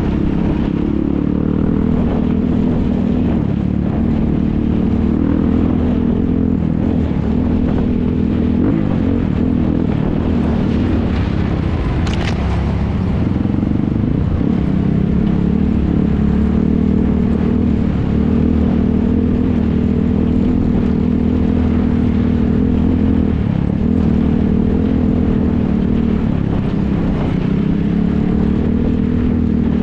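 Racing ATV engines running and revving, their pitch rising and falling continuously as the quads work the throttle. About twelve seconds in there is a brief sharper high-pitched burst.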